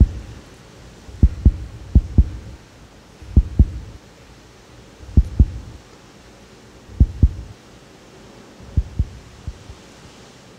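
A heartbeat sound effect: low lub-dub double thumps, close together for the first two seconds, then slowing to about one pair every second and three quarters, and growing fainter near the end.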